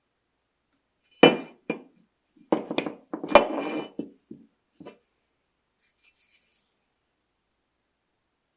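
A string of sharp metallic clinks and knocks, the loudest about three seconds in, as metal tools or parts are handled and set down on a hard surface. A few faint ticks follow near the end.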